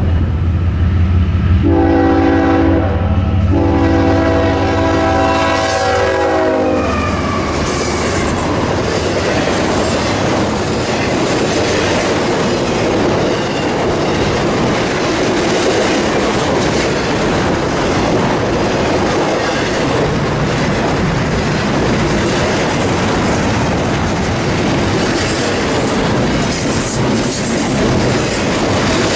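Freight locomotive's air horn sounds a short blast about two seconds in, then a long blast whose pitch drops as the locomotive passes, over the deep rumble of its engine. Then comes the steady rolling clatter of a double-stack intermodal train's wheels on the rails as the cars go by.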